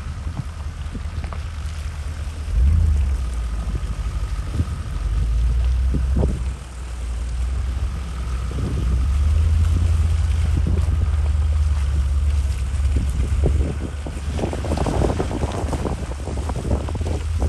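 Wind buffeting the microphone as a fluctuating low rumble, mixed with 4x4 vehicles running slowly along a wet, puddled dirt track. Short knocks come now and then, several close together near the end.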